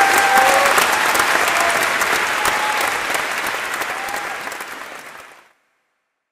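Opera audience applauding, with a few calls heard over the clapping. The applause fades and cuts off abruptly about five and a half seconds in.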